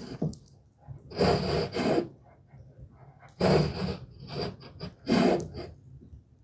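Marking gauge being drawn along the cherry lid's edge, scoring the hinge depth line: about four short rasping strokes of roughly half a second each, with a few light taps between them.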